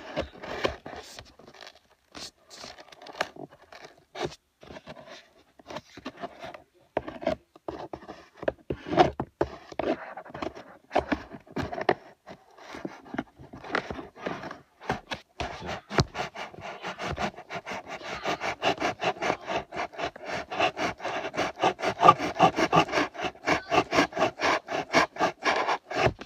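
Scratching and scraping strokes against a surface, irregular at first, then settling about two-thirds of the way in into a fast, even run of strokes, about four or five a second.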